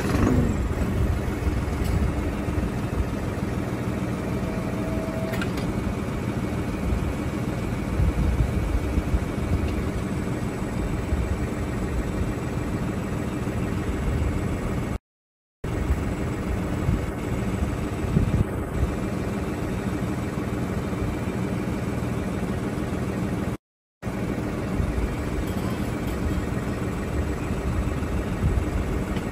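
Tractor engine starting and then running steadily near idle while its three-point hitch hydraulics raise and lower a rear-mounted dual hay spear. The sound drops out to silence twice, briefly.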